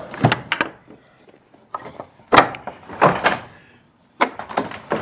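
Metal slide-bolt latch on a wooden barn stall door being worked by hand, with sharp clacks and wooden knocks as the bolt is drawn and the door is moved: a few quick clacks at the start, a loud knock about halfway, then more clacks in small groups.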